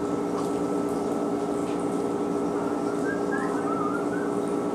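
Steady machine hum from a laundry machine running. A few faint, short chirping glides come in about three seconds in.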